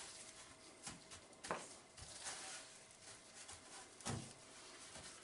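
Faint pats and rustles of gloved hands rubbing dry spice rub into a pork neck in a stainless-steel roasting tray, with a few short soft ticks, the clearest about a second and a half in and near four seconds.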